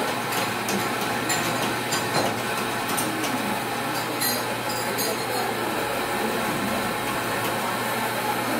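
Steady mechanical running noise of espresso-bar equipment, with a low hum and scattered light clinks of cups and tools.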